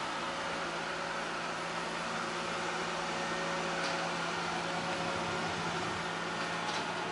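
iLife A9 robot vacuum running steadily: an even whir with a constant hum underneath. There is a faint click about four seconds in and another near the end.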